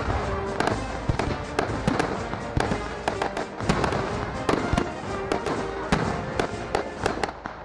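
Aerial fireworks shells launching and bursting in quick succession: a dense string of sharp bangs, several a second, over a continuous rumble. Music plays faintly underneath.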